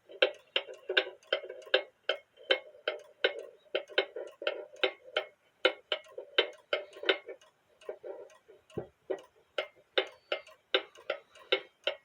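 Cuckoo clock movement ticking, about three to four ticks a second, the ticks not all equally loud. A single dull knock sounds about nine seconds in.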